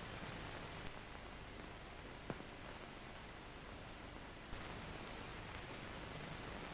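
Faint, steady hiss of an old film soundtrack, with one faint click about two seconds in and a thin, very high whine over the first half.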